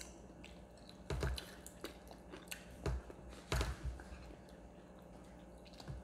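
People eating crispy fried chicken: scattered wet crunches and smacks of biting and chewing, the loudest about a second in and again around three and a half seconds in.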